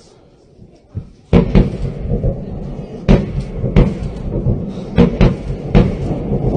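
Grad multiple rocket launcher firing a salvo. It begins suddenly and loudly about a second in, then a string of sharp bangs, one for each rocket leaving the launcher, comes at uneven intervals of roughly half a second to a second over a continuous rumble of rocket motors.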